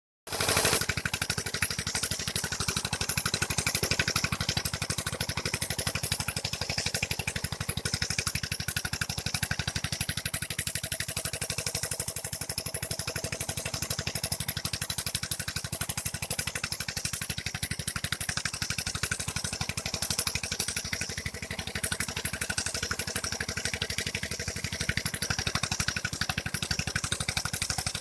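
Steady engine of a bitumen spraying unit driving the pump that feeds a hand-held spray gun, running at a constant speed, with a hiss over it as the hot bitumen is sprayed onto crushed stone.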